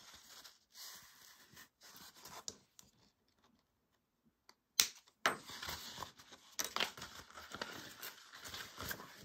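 Fabric pieces rustling and sliding as they are handled and lined up on a sewing table, with one sharp click a little after the middle as a plastic sewing clip is snapped on.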